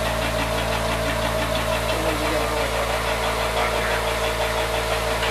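Flexible screw conveyor running steadily. Its drive motor hums as the spiral screw turns in its tube, conveying coarse powder, with a fine, even rhythmic rattle over the hum.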